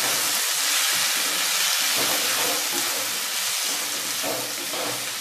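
Potato, onion and tomato frying in oil in a kadhai, a steady sizzling hiss, while a wooden spatula stirs and scrapes through them to mix in the spice powders.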